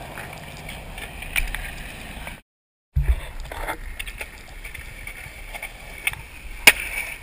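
Skateboard wheels rolling on concrete with a steady rumble, broken by a few sharp clacks of the board, the loudest near the end. The sound drops out completely for about half a second early on, at an edit.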